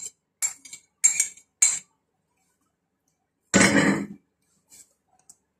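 A spoon knocking against the edge of a bowl while scooping mushroom filling, in four short sharp taps, then a louder, longer clatter a little past halfway, and two faint ticks near the end.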